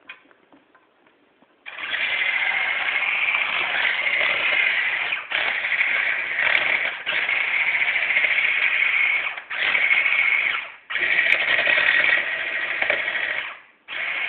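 Electric hand mixer running with a steady whine, its beaters working cookie dough in a metal bowl. It starts about two seconds in and cuts out briefly five times.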